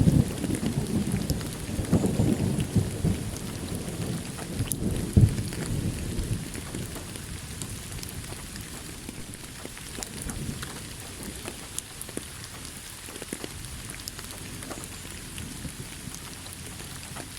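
Thunderstorm: a low thunder rumble dies away over the first several seconds, leaving steady rain falling, with scattered small crackles.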